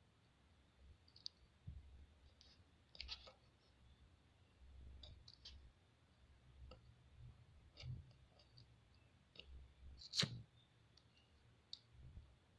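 Faint, scattered clicks and taps of small parts and wires being handled, with one sharper click about ten seconds in.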